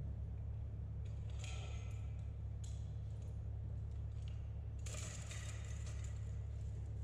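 Metal clinks and rattles of TerrAdaptor leg tubes being handled and fitted together, in a few short spells, the longest from about five seconds in, over a steady low hum.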